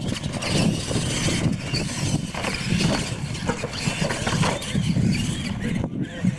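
Electric R/C monster trucks racing on dirt: a high motor and gear whine rises and falls as they throttle up and back off, over a low rumble, with scattered clatter from tyres and chassis hitting the ramps.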